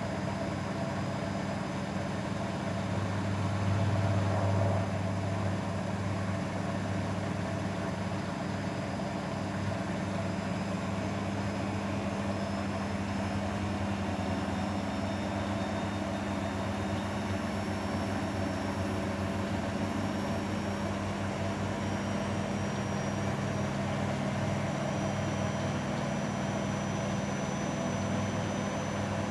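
Grundig washing machine running with a steady motor hum, a brief swell about four seconds in, and a faint high whine that climbs slowly in pitch, as the drum speeds up in its spin.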